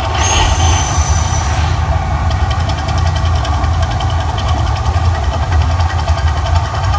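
Mirage volcano show in full eruption: a loud, deep, steady rumble with a faint fast pulsing over it, and a hissing whoosh with a high whistle, about a second and a half long, near the start as the red-lit water jets shoot up.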